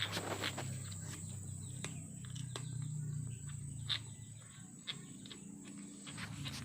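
Kittens eating: scattered small chewing clicks over a low steady rumble, with a thin high steady whine throughout.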